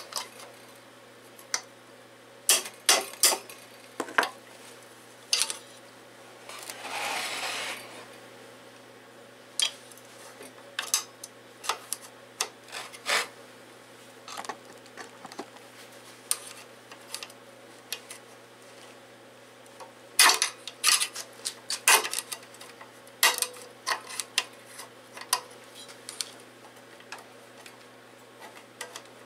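Hand tools and loose metal parts clinking and tapping irregularly against a small engine's cast block and valve springs while a valve is worked loose, with a rough scrape lasting about a second and a half about seven seconds in.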